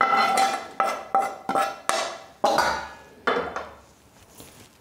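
Metal spoon and frying pan knocking against a stainless steel bowl as roasted coconut is scraped out of the pan. There are about eight sharp, ringing clinks in the first three and a half seconds, then it goes quiet.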